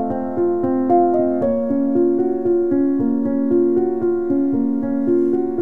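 Background music played on a keyboard, piano-like in tone: a melody of single notes changing in a steady, even rhythm.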